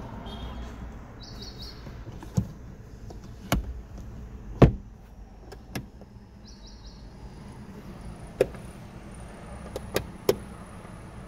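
Sharp plastic clicks from a Toyota Sienta's cabin fittings being handled: the sun visor and the overhead dome-light switch. There are about eight separate clicks, the loudest about four and a half seconds in and a quick cluster of three near the end, over a low steady hum.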